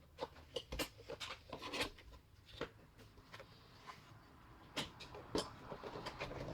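Irregular small clicks, taps and light scraping from hands and tools handling the car radio's circuit board, with a few sharper clicks about five seconds in.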